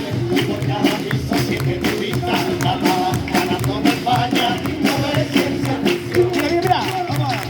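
Cádiz carnival chirigota's musical accompaniment: percussion keeping a steady, even beat under held, wavering melody tones, as the cuplé comes to its close.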